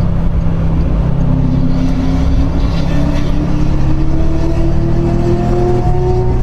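Car engine accelerating in one long, steady pull, its pitch climbing slowly from about a second in, over a heavy low rumble of engine and tyres heard from inside the car's cabin.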